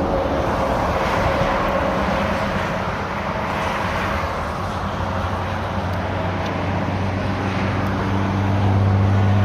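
Road traffic on a nearby highway: a steady rush of passing vehicles, with a low engine hum that grows louder near the end as a heavy vehicle draws closer.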